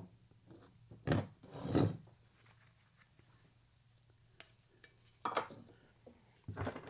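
Metal pieces and tools being handled on a workbench: a click, then two short scraping rubs about a second in, another a few seconds later, and light metal clinks near the end, over a faint steady shop hum.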